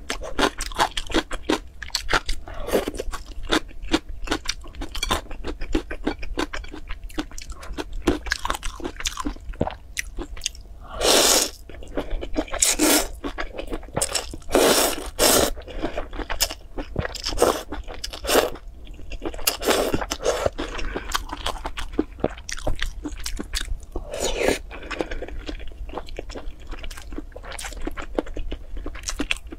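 Close-miked eating: chewing with many small wet mouth clicks, broken by several longer, louder slurps of thin noodles from a spicy broth.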